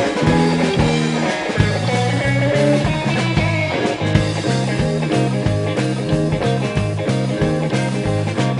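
A rock'n'roll trio of guitar, bass and drums playing an instrumental passage with no vocals: a bass line stepping from note to note under guitar, over a steady drum beat.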